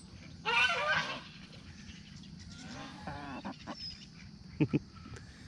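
Domestic geese honking: one loud honking call about half a second in, fainter calls around three seconds in, and two short honks near the end.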